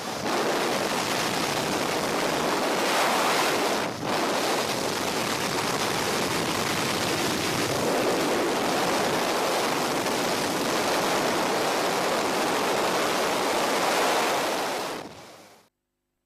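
Steady rush of freefall wind over a helmet camera's microphone, with a brief dip about four seconds in; it fades out near the end.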